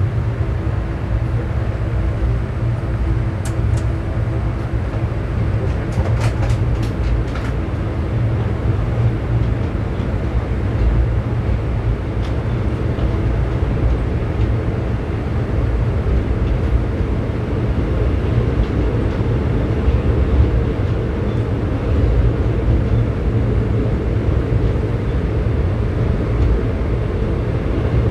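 Express passenger train running: a steady, loud low rumble from the coach rolling along the rails, with a few short clicks about three seconds in and again between six and seven and a half seconds.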